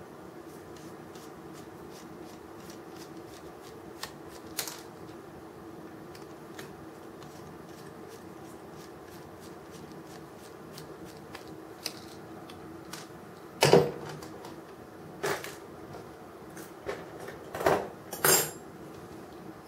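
Light clicks and ticks of a screwdriver and small parts being handled while a 1:50 diecast model crane is taken apart, with several louder knocks, the loudest about 14 s in and two more near the end. A steady faint hum runs underneath.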